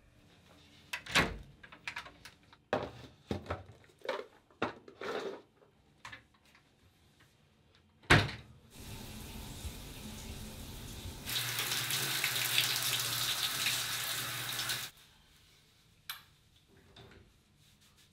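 A string of knocks and thuds, then one sharp knock and water running steadily, like from a tap. The running water grows louder about three seconds later and stops abruptly.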